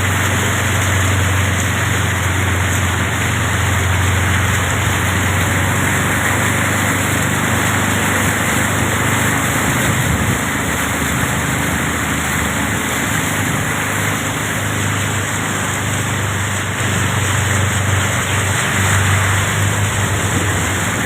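A vehicle's engine running steadily with a low drone while driving through a flooded street, under a continuous hiss of wet road and water noise.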